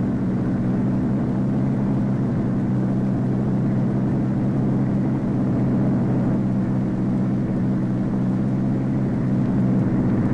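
Steady jet engine noise with a low hum, from the Convair XF-92A delta-wing research jet on high-speed taxi runs, running at an even level without rising or falling.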